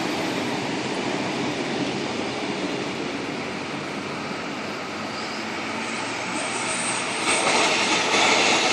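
Passenger train running on the rails, a steady noise that gets louder about seven seconds in, with a brief high wheel squeal just before.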